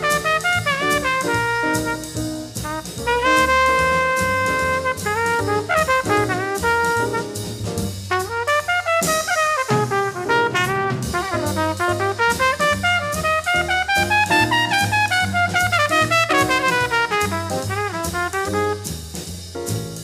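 Small bebop jazz combo recording: a horn plays a quick-moving melodic line up and down over bass and drums.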